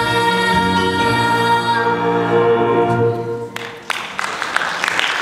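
A girl's voice holds a long final note over musical accompaniment, fading out about three seconds in, and the audience breaks into applause about half a second later.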